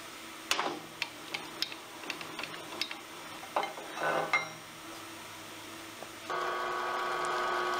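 Clanks and clicks of an aluminium bar being set and clamped in the vise of a Harbor Freight horizontal metal-cutting bandsaw. About six seconds in, the bandsaw's motor starts and runs with a steady hum.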